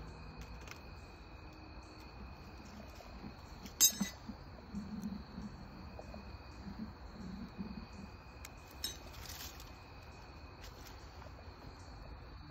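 Steady high-pitched chirring of crickets, with one sharp clink about four seconds in and a few softer ticks.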